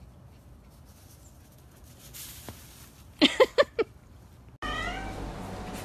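A small black-and-white puppy giving four quick, high yips in a row. Near the end the sound cuts suddenly to a louder steady background hum with a brief warbling call.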